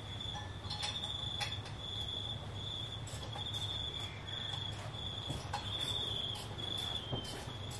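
High insect-like chirring in repeated pulses of about half a second, going on throughout over a low background hum, with a few faint clicks.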